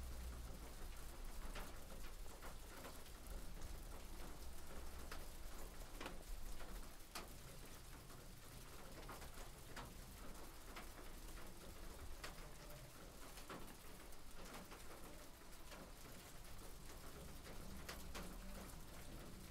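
Faint, irregular taps of a stylus and fingertip on an iPad's glass screen, over a low steady hum.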